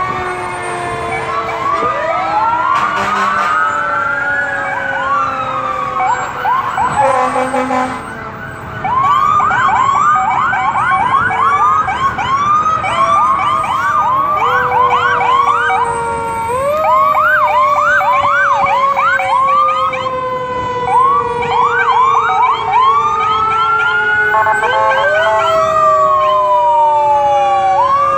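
Sirens of several passing fire engines sounding at once: slow rising-and-falling wails and quick repeated yelping sweeps overlap, over long siren tones that sink slowly in pitch.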